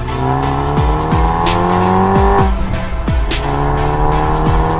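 Kia Forte GT's 1.6-litre turbocharged four through an XForce stainless cat-back exhaust with Varex muffler, accelerating: the exhaust note climbs, drops at a gear change about two and a half seconds in, then climbs again. Electronic music with a heavy bass beat plays over it.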